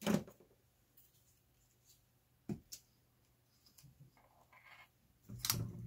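Tools and parts being handled on a tabletop: three sharp knocks, the loudest near the end, with a soft rustle just before it.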